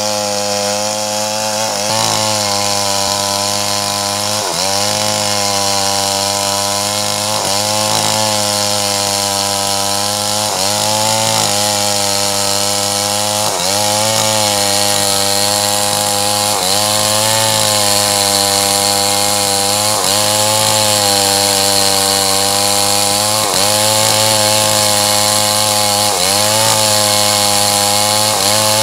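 Stihl 381 two-stroke chainsaw running at full throttle, ripping lengthwise through a large red meranti log. Its engine pitch dips briefly and recovers every two to three seconds.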